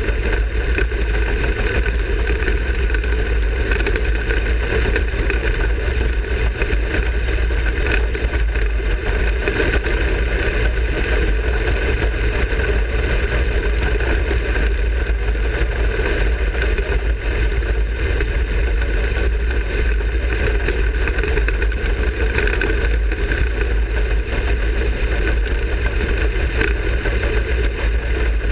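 360 sprint car's V8 engine running steadily, heard from inside the cockpit.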